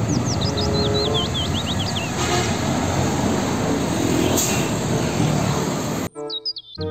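Steady roadside traffic noise as a loaded Isuzu car-carrier truck drives past with other vehicles, with a run of quick high chirps in the first two seconds. Near the end it cuts off suddenly and music starts.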